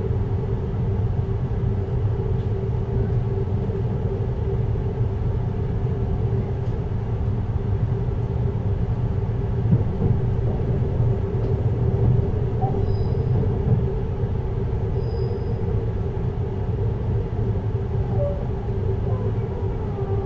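Cab-less passenger-side running sound inside a JR Hokkaido 733 series electric multiple unit, motor car MoHa 733-1002: a steady rumble of wheels on rail with a constant hum.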